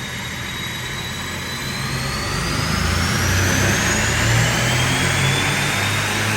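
Mercedes-AMG C63 S engine pulling under load on a chassis dyno in fifth gear from 2500 rpm. The revs climb steadily, a whine rises slowly in pitch, and it gets louder about two seconds in.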